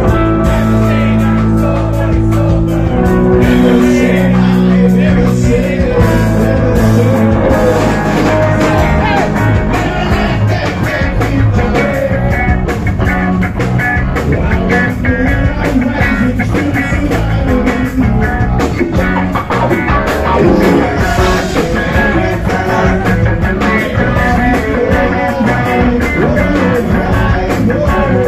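Rock band playing live, loud and steady: distorted electric guitar, bass guitar and drums, with a man singing over them.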